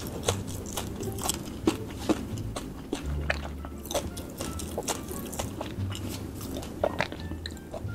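Close-miked chewing of a Paqui One Chip Challenge chip, with many small sharp mouth clicks at irregular moments, over the bass line of background music.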